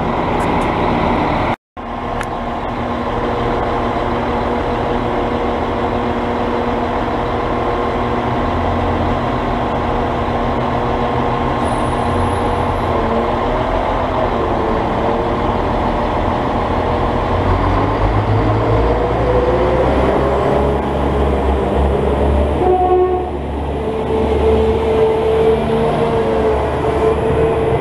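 Northern Ireland Railways CAF diesel multiple unit's underfloor diesel engines running, then throttling up as the train pulls away from the platform, the engine note rising in steps over the last third. The sound cuts out for a moment about a second and a half in.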